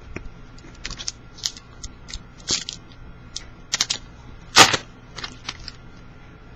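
Foil trading-card pack being torn open and its cards handled: irregular crinkles and sharp clicks, a few louder snaps among them.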